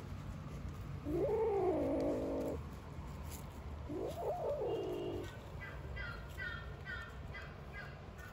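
Two drawn-out cat meows that rise and fall in pitch, each about a second long, followed by a run of short high chirps repeating a few times a second.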